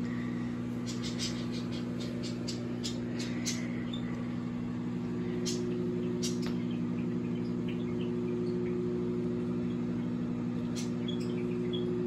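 Microwave oven running with a steady electrical hum, with scattered short sharp ticks and crackles over it, clustered in the first few seconds.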